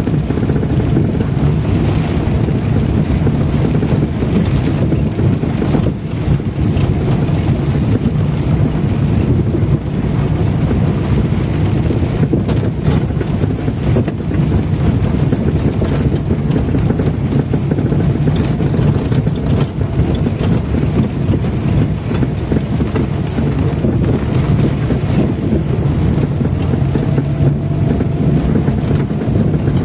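A car driving on a wet dirt road, heard from inside the cabin: steady engine and road noise, with rain on the windshield.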